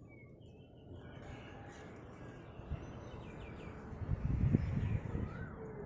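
Birds calling over faint outdoor ambience, with a burst of low rumbling about four seconds in.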